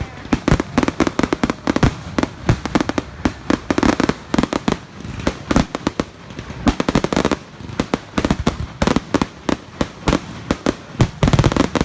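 Fireworks going off in rapid, overlapping volleys: many sharp bangs and crackling pops in quick succession, loud and irregular.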